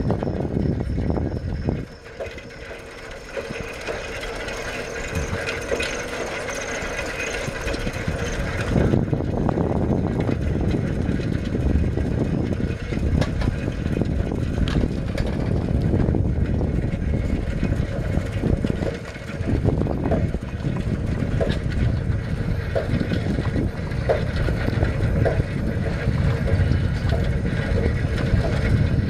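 Bicycle being ridden on a paved road: a steady rumble of tyres and wind on the microphone, with frequent small rattles and knocks from the bike. It runs quieter for several seconds early on, then picks up again.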